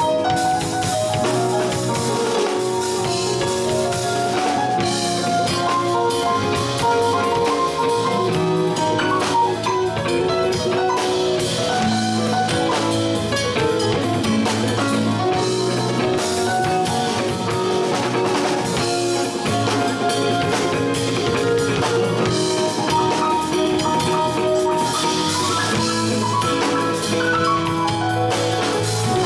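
Live band playing an instrumental passage: drum kit, electric guitar and a Yamaha Motif XS7 synthesizer keyboard playing together.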